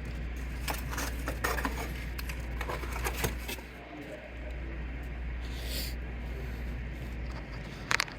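Scattered light clicks and rubbing of parts being handled during printer repair work, over a steady low hum that stops near the end, followed by a few sharper clicks.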